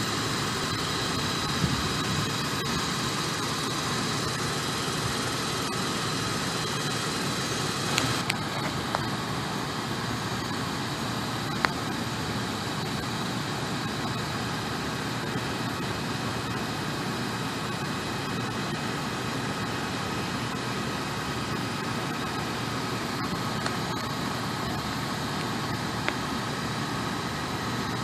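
Steady mechanical hum and hiss with a few faint, steady high tones, unchanging throughout, broken only by two or three brief clicks.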